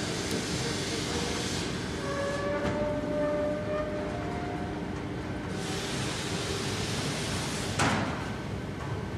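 Chain-driven roller lamination machine running steadily: a continuous mechanical rumble and hiss, with a whine about two to four seconds in and a single sharp bang near the end.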